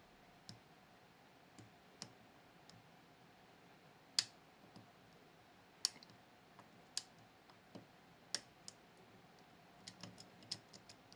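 Sparse, faint clicks and ticks from picking a Miwa Kaba Star Orion (JC) dimple lock cylinder: the pick working the pins under tension as they set and drop. The sharpest click comes about four seconds in, with a quick run of small clicks near the end.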